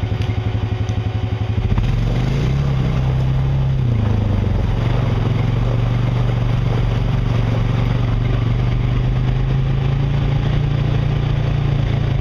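Honda Rancher ATV's single-cylinder engine putting at idle with a fast, even beat, then revving up about two seconds in as the quad pulls away. The pitch rises and wavers briefly, then the engine settles into a steady pull at a constant pitch while the quad rolls along.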